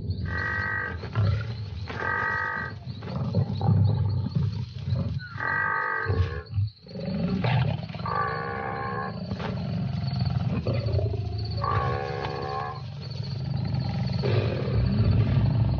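Lions growling low over a wildebeest they are pulling down, with five drawn-out, pitched cries, the last two wavering.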